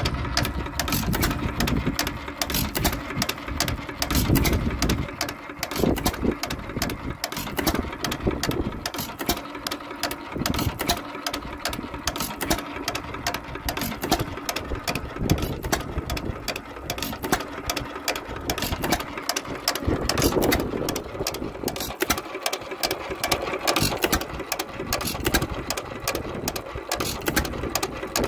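1 3/4 hp Economy hit-and-miss engine running: its valve gear and flywheel clatter in a rapid, even rhythm, with a heavier firing thump every second to few seconds as it fires and then coasts.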